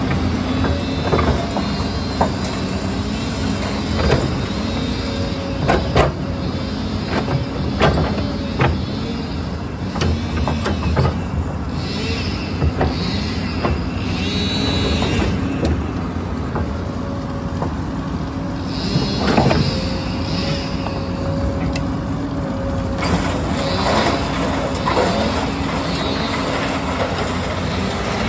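Tracked excavator's diesel engine running under load, rising and falling in pitch as it works its hydraulics to tear out a tree stump and lift the root ball. Repeated sharp cracks and knocks come from roots snapping and the bucket striking.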